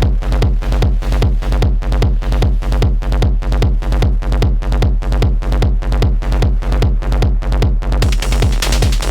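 A techno loop playing back from an Ableton Live session: a steady, driving pulse over a heavy low bass. Near the end a bright hissing layer comes in over the top.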